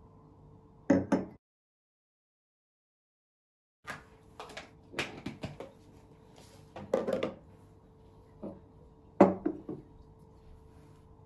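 Glassware and a small plastic container being picked up and set down on a wooden tabletop: a pair of sharp knocks, a stretch of dead silence, then a run of knocks and clinks and one last firm knock.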